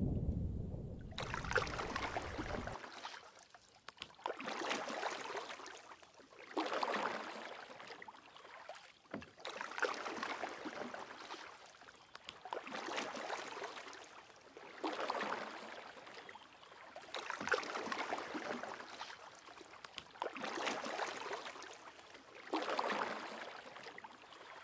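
Small waves washing onto a shore in a slow, even rhythm, one wash every two to three seconds.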